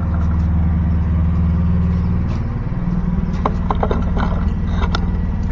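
Engine running steadily, its low note shifting slightly a little over two seconds in, with a few sharp clicks and knocks of handling from about three to five seconds in.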